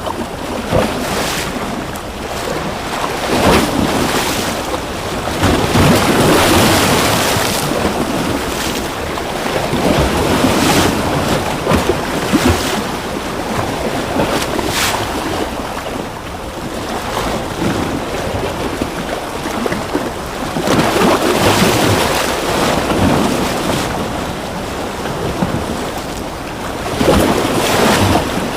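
Ocean waves breaking and washing on a shore, a steady rush of surf that swells and eases every few seconds.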